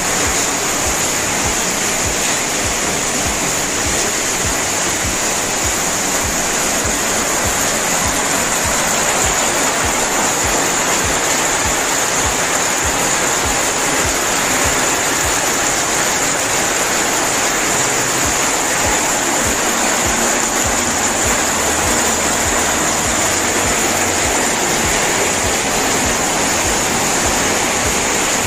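Steady, loud rushing noise with a thin high hiss on top and no pauses or changes.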